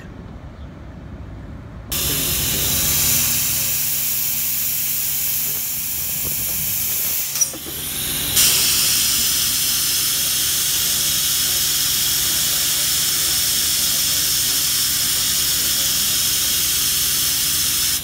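Band-saw blade sharpening machine running: a steady mechanical hiss over a low hum that starts abruptly about two seconds in, turning brighter and harsher about eight seconds in.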